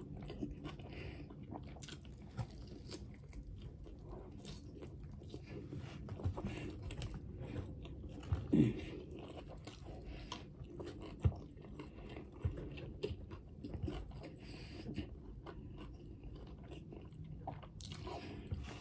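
A person chewing a mouthful of sub sandwich on a soft roll, close to the microphone: many small wet mouth clicks, with a couple of louder smacks partway through.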